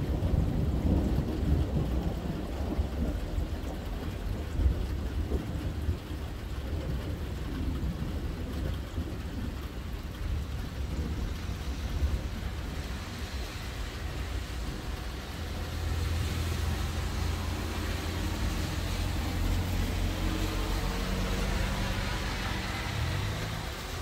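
Thunder rumbling over steady rain, the rumble strongest in the first few seconds and dying away. In the last few seconds a car comes closer, its tyres hissing on the wet road.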